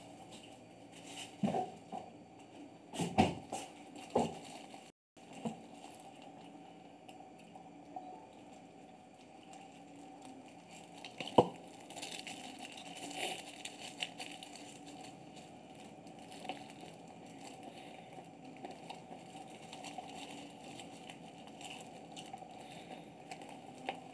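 Cats eating from a plastic tray: small wet chewing and crunching sounds throughout, with a few sharp knocks in the first few seconds and one more about eleven seconds in.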